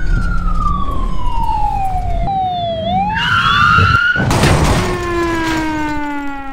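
Police siren wailing, its pitch sweeping slowly up and down, cut by a loud crash with breaking glass about four seconds in, followed by a falling tone that fades out.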